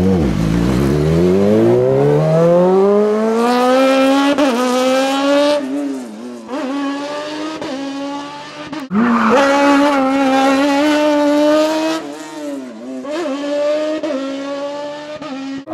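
A racing vehicle's motor pulling away: its pitch climbs smoothly over about three seconds to a high, steady note, then drops and recovers briefly three times, as if lifting for corners on a lap.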